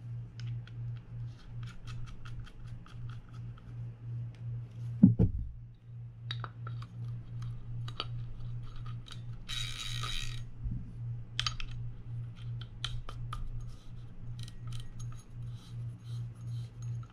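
Small clicks and taps of a Penn Spinfisher 750SSM spinning reel's parts as the drag knob and spool are fitted and the spool is turned by hand, with a thump about five seconds in and a short hiss about ten seconds in.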